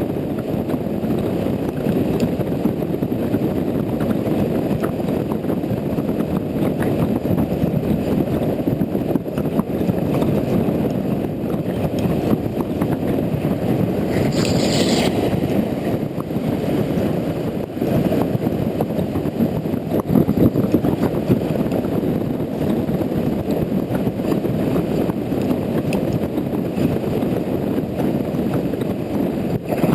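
Honda Integra NC750D motorcycle on the move on a wet road: a steady low rumble of wind, engine and road noise, with a short hiss about halfway through.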